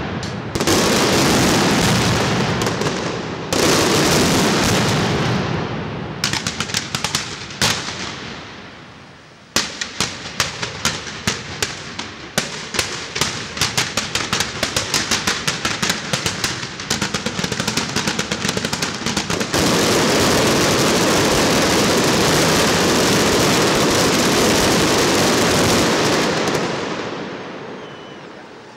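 Fireworks castle (castillo de fuegos artificiales) firing: loud surges of shell bursts, then a rapid run of sharp bangs from about six seconds in, then a dense unbroken wash of crackling from about twenty seconds that fades near the end.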